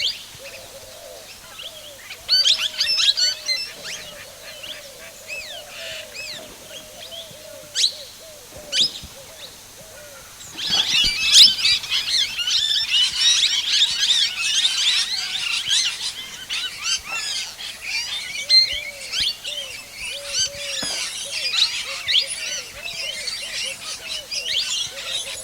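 Birds calling and chirping: scattered high chirps at first, thickening about ten seconds in into a dense chorus of many birds, over a lower call repeated steadily throughout.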